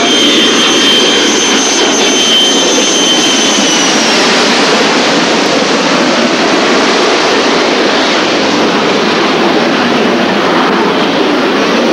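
Blackburn Buccaneer's Rolls-Royce Spey jet engines at high power as it goes around from an aborted landing: a loud, steady roar with a high whine that dips slightly about four seconds in. Recorded on Super 8 sound film.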